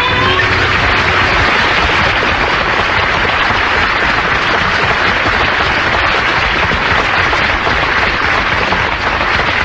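Audience applauding as a song ends: dense, steady clapping from a large crowd.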